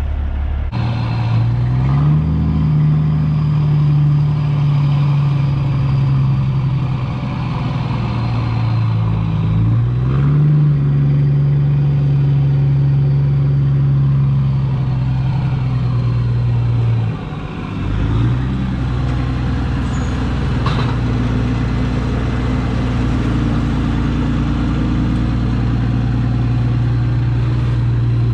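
Diesel engine of a semi truck pulling a loaded lowboy trailer, running steadily under load, its pitch climbing about two seconds in and again about ten seconds in, with a short drop and dip in level a little past halfway, as it works through the gears.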